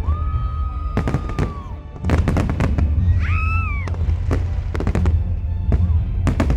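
Fireworks going off in rapid cracks and bangs over a constant low rumble. A whistling tone holds for over a second near the start and dips away, and a shorter wavering whistle comes about three seconds in.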